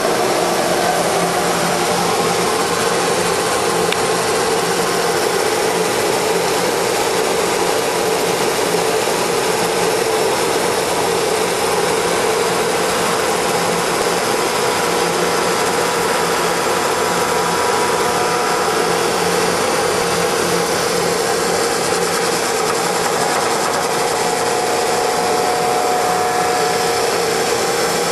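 CL-1500B hydraulic copying lathe running, a continuous machine noise with a steady hum and faint whines on top, even in level throughout.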